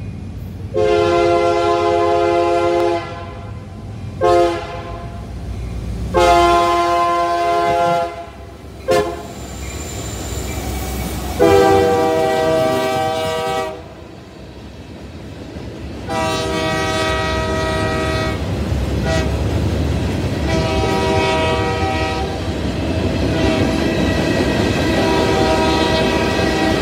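Union Pacific freight locomotive horn sounding a string of long and short blasts as the train approaches and passes, the later blasts fainter. Under and after the horn, freight cars roll by with a steady rumble and wheel clatter.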